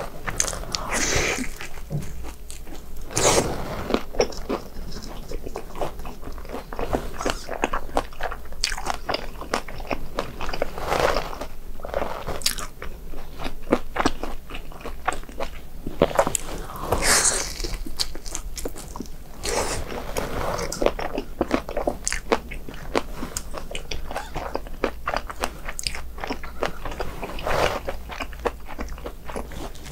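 A person biting into and chewing crispy fried snack food, with irregular crunchy bites and chewing and a few louder crunches along the way.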